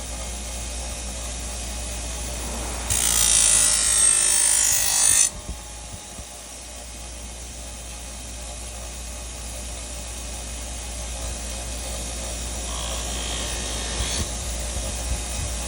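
A tool working a knife during repair: a harsh scraping noise lasting about two seconds, over a steady low hum.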